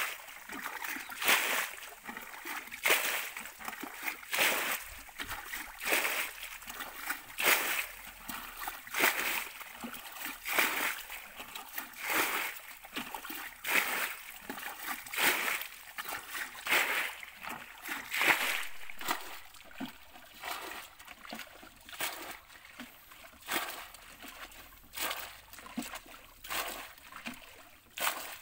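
Shallow muddy water splashing in regular strokes, about one every second and a half, growing softer in the second half.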